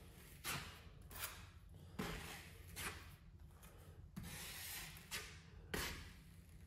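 Steel taping knife scraping thinned lightweight joint compound off a trowel and spreading it over a drywall patch: a run of short, faint scrapes and swipes, one a little longer past the middle.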